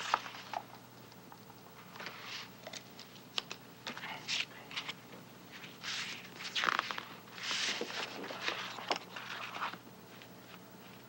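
Rustling, scraping and scattered small clicks of objects being handled, over a faint steady room hum.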